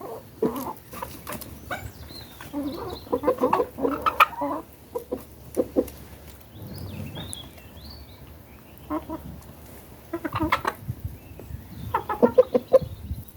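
Chickens clucking in short clustered bursts, with sharp taps between the calls and a few higher, thinner calls near the middle.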